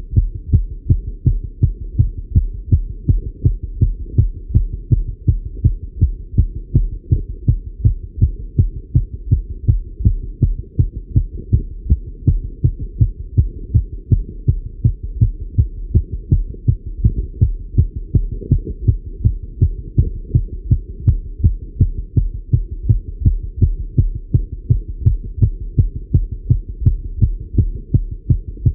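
A man's heart beating fast and steady, heard through a Littmann stethoscope, the rate raised by cycling. The evenly spaced low thumps sit over a constant low hum.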